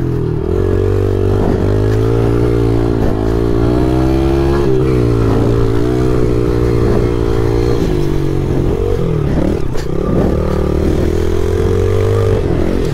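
2013 Yamaha TTR110 pit bike's small single-cylinder four-stroke engine running hard around a sand motocross track, its revs rising and falling as the rider works the throttle. The revs drop briefly about a third of the way in and again past halfway before climbing back up.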